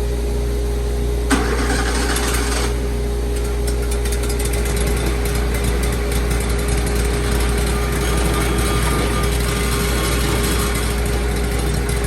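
Portable bandsaw mill's engine running steadily, with a sharp knock about a second in followed by a noisy burst lasting about a second.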